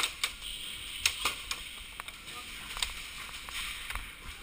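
Scattered sharp snaps and clicks at an uneven pace, a few a second at times, typical of airsoft guns firing semi-auto and BBs striking cover around the players.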